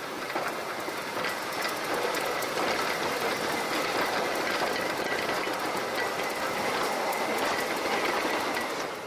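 Roller coaster train rattling along its steel track, wheels clattering with a thin steady whine, dying away near the end.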